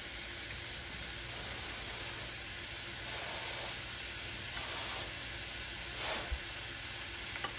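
Steady sizzling hiss of cooking on the stovetop: diced chicken frying with onions, peppers and garlic in a pan beside a steaming pot of boiling pasta.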